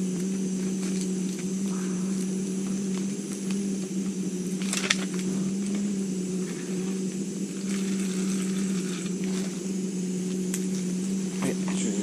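Camping gas stove burner running with a steady low hum. A plastic food pack crinkles in the hands a few times, loudest about five seconds in.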